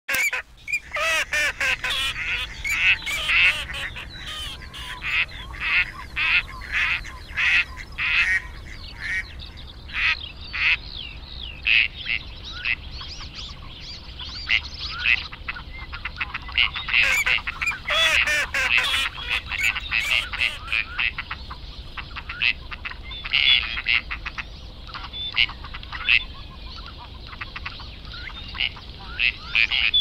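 A flock of waterfowl calling: many overlapping honks and quacks, one after another without a break.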